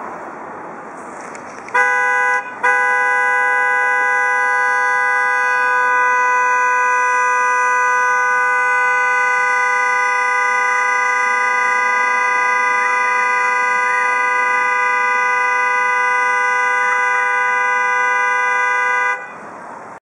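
Car horn sounded by a dog leaning on the steering wheel: a short honk about two seconds in, then after a brief break one long, unbroken blast lasting about sixteen seconds that cuts off suddenly near the end.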